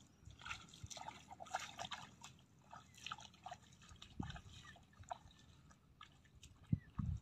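Faint splashing and sloshing of a person's steps wading through shallow flooded grass, a string of small irregular splashes and drips with a couple of dull thumps about four seconds in and near the end.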